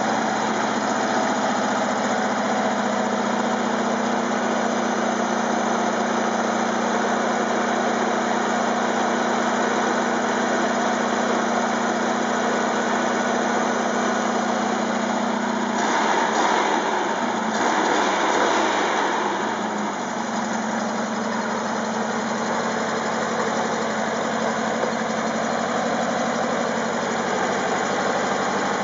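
1961 Porsche 1600 air-cooled flat-four engine running on a test stand, idling steadily. About halfway through its speed rises and falls twice in quick succession, then it settles back to a steady idle.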